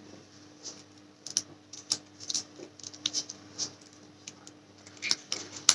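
Lock pick and tension tool working the pin stack inside a Tarmo 50mm pin-tumbler padlock: small metallic clicks, about ten of them at uneven spacing, with the sharpest near the end.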